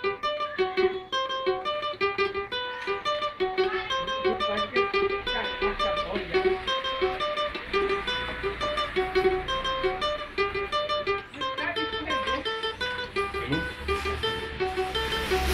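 Cavaquinho being played: a quick melody of picked single notes over a repeated lower note.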